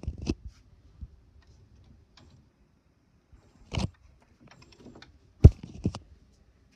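HP inkjet all-in-one printer at work: a cluster of sharp clicks at the start, another knock about four seconds in, and two more about a second and a half later, over a faint low hum.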